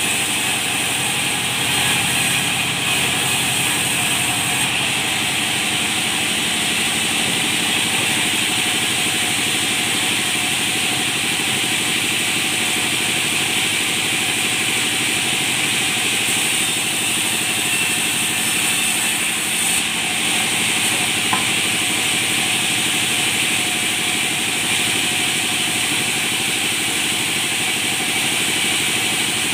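Band sawmill running steadily, its blade ripping a wooden slab lengthwise into a plank.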